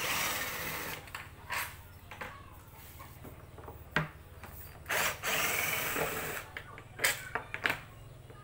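Cordless drill-driver run in several short bursts, backing screws out of a subwoofer cabinet's top panel, with a few sharp clicks in between.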